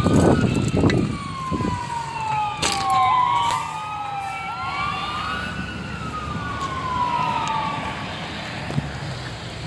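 Emergency vehicle sirens wailing in slow rising-and-falling sweeps, two sirens overlapping in the middle, with a low rumble in the first couple of seconds; the sirens fade out near the end.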